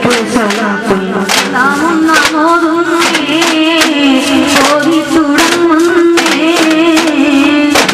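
A singing voice performing a devotional song in a wavering, ornamented melody over a steady beat of sharp percussive hits.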